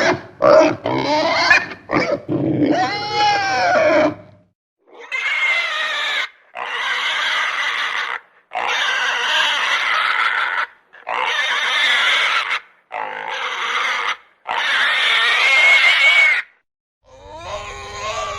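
Pig squealing: a quick run of short squeals and grunts over the first four seconds, then about six long, high squeals of one to two seconds each with brief pauses between.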